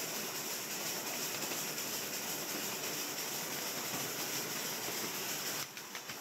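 Steady hiss and rumble of a small steam engine on the move, with no clear beat, changing abruptly near the end.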